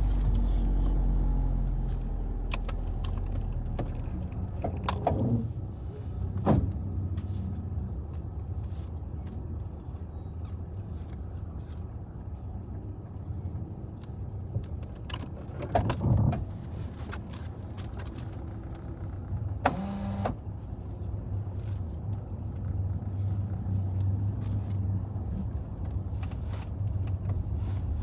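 Car heard from inside the cabin: a steady low hum from the running vehicle, with scattered clicks and a few short knocks.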